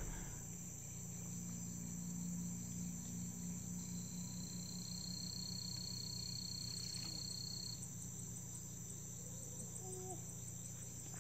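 Insects chirring steadily in lakeside vegetation, a continuous high pulsing drone, with a second, higher steady tone joining from about four seconds in for some four seconds. A faint low hum sits underneath.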